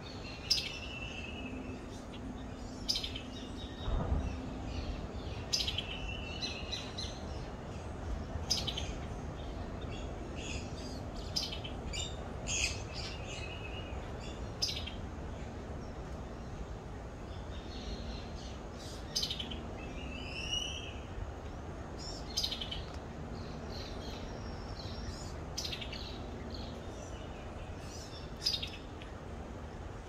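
Wild birds calling in short, sharp chirps, one every second or two, over a steady background hiss, with a low bump about four seconds in.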